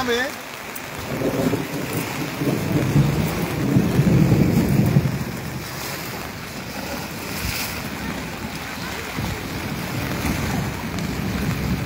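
Floodwater of a river in spate rushing and lapping over the edge of a road, with wind buffeting the microphone, the rumble strongest about three to five seconds in.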